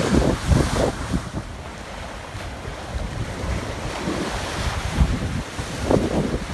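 Choppy storm-surge waves washing and breaking along the shore, with gusty wind buffeting the microphone. The buffeting is loudest in the first second and again around five to six seconds in.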